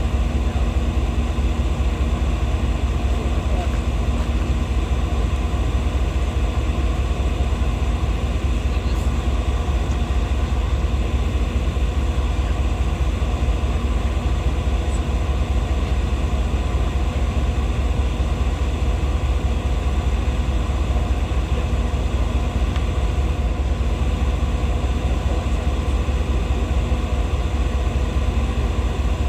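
An engine running steadily: a continuous low rumble with several steady tones over it, unchanging throughout.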